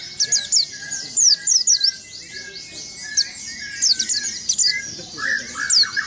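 White-eye (pleci) singing a fast, unbroken rolling song of quick, high, downward-slurred notes over a lower series of short chirps. Lower, louder chirps come in near the end.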